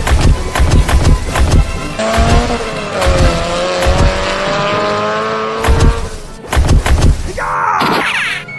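Added car sound effects, an engine sound rising and falling in pitch with tyre squeal, over background music with runs of heavy thumps. A falling swoosh comes near the end.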